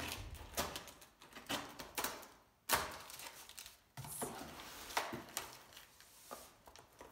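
Cardboard shipping box being opened by hand: packing tape cut and pulled, and the cardboard flaps lifted, with a series of sharp knocks, scrapes and rustles. The loudest knock comes a little under three seconds in.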